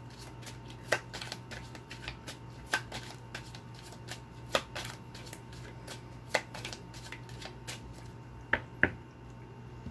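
A deck of oracle cards being shuffled by hand: a run of quick, irregular card flicks and taps with a few sharper snaps, two of the loudest close together near the end.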